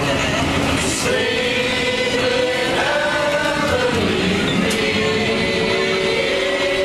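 A group of people singing a Christmas carol together, slowly, with long held notes, over the low rumble of the streetcar.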